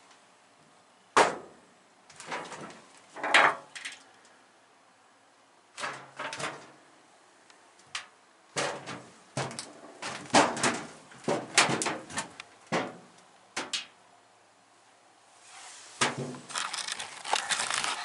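Footsteps and knocks on the steel ladder and deck plating inside a submarine as someone climbs down between compartments: irregular sharp thuds and clanks, with a busy cluster in the middle and rustling of movement near the end.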